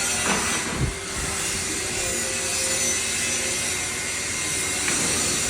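Wet grinder (dal grinder) machine running with a steady grinding rasp, with a couple of brief knocks in the first second.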